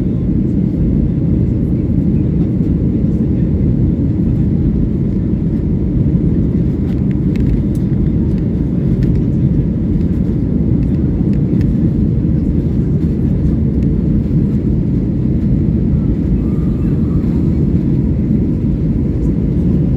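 Airliner's jet engines and airflow during take-off, a loud, steady low rumble heard from inside the cabin.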